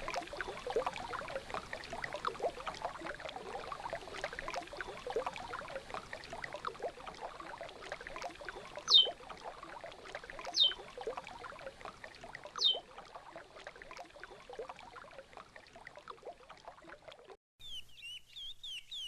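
River water running and babbling, with three short falling whistled bird notes about nine, ten and a half and twelve and a half seconds in. Near the end the water cuts off suddenly and a curió (lesser seed-finch) starts singing a quick warbling phrase.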